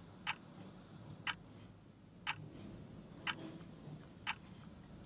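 Clock ticking, five evenly spaced ticks one second apart over quiet room tone.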